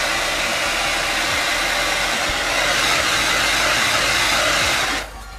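Handheld hair dryer blowing, a loud, steady rush of air that cuts off suddenly near the end.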